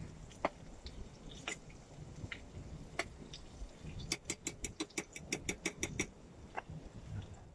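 A metal fork clicking against a metal pan: a few scattered clicks, then about two seconds in the second half of quick clicks at roughly five a second.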